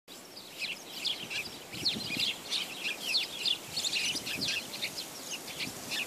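A flock of small birds chirping, many short high chirps overlapping without a break.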